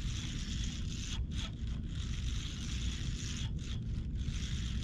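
Fishing reel being cranked, its gears giving a steady zipper-like whirr, over a low wind rumble on the microphone.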